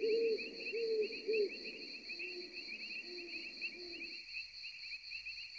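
Forest ambience with crickets chirping steadily in a fast high pulse. Over it, a bird hoots in a run of short low notes, which drop slightly in pitch after about two seconds and stop about four seconds in.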